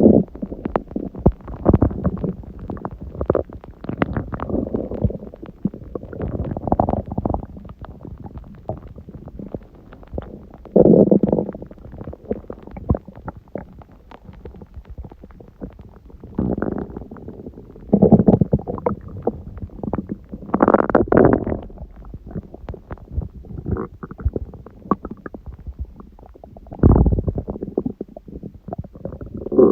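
Human stomach growling and gurgling in irregular bursts, with short pops between them and louder rumbles about a third of the way in, around two-thirds of the way, and near the end. The uploader puts it down to digesting a large udon meal, her first gluten in a while.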